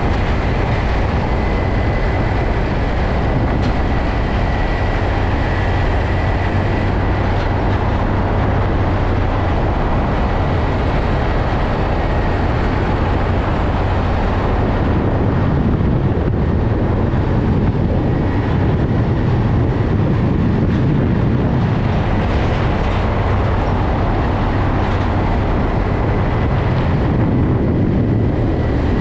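Steady highway driving noise from a semi-tractor hauling a shipping container, heard from a vehicle moving alongside: a continuous rumble of engine, tyres and wind with no single event standing out.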